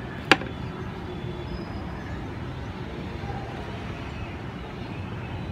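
Steady low background rumble, with one sharp wooden tap about a third of a second in.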